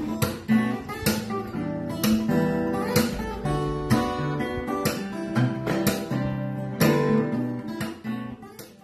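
Background music of a strummed acoustic guitar, fading out near the end.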